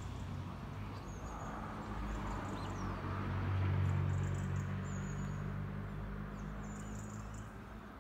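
Low, steady engine hum that swells about halfway through and then eases off, with short high bird chirps over it.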